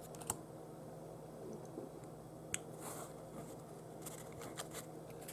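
Faint handling of trading cards: a few soft clicks and rustles as cards are slid off the stack by hand, over a low room hum.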